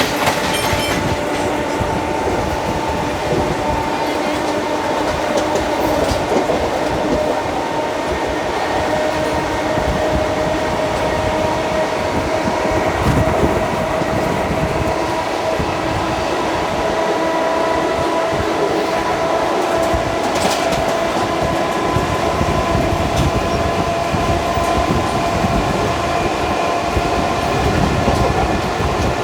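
Indian Railways ICF passenger coaches running at speed, heard from on board: a steady rumble and rush of wheels on rail with several steady tones over it and an occasional clack over the rail joints.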